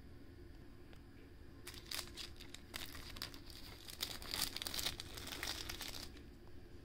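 Plastic wrapping crinkling as it is handled while unboxing a DVD. A run of quick crackles and rustles starts about two seconds in and stops about a second before the end.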